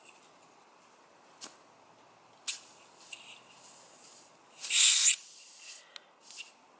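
Air hissing out through a puncture in a tubeless gravel-bike tyre in short, irregular spurts, the loudest lasting about half a second. The hole is a large split that the tyre's sealant has not closed.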